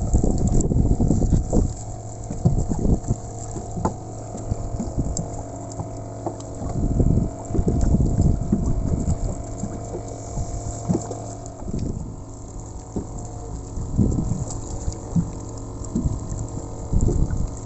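Steady hum of a small motor running, with irregular low thumps and knocks over it.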